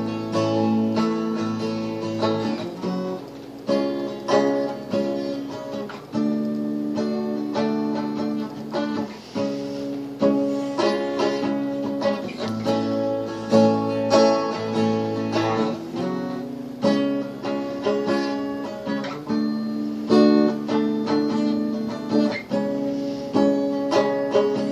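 Acoustic guitar strummed in steady chords, with no singing.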